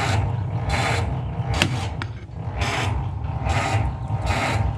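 Ford Model T's four-cylinder engine being turned over slowly by its electric starter, a low motor hum with an even surge a little more than once a second as each cylinder comes up on compression. It is a cold start with the choke pulled, and the engine does not fire.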